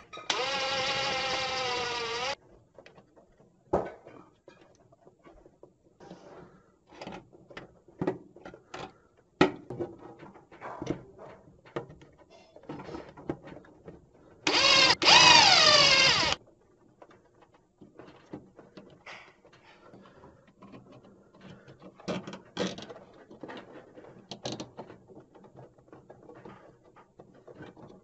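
Ryobi ONE+ cordless drill drilling holes into the plastic switch clips of a dryer control panel, in two short runs of about two seconds each. The motor whine drops in pitch as each run stops. Between the runs come scattered small clicks and knocks of handling.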